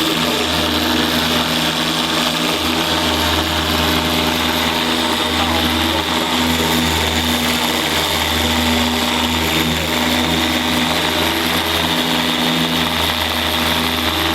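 Dual-action polisher with a microfiber pad running steadily, buffing wet-sanding marks out of car clearcoat; at the very end it is switched off and its pitch falls as it spins down.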